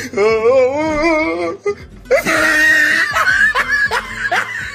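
Comedy sound effects laid over the footage: music with laughter, first a wavering held tone, then short rising bursts of laughter about three a second.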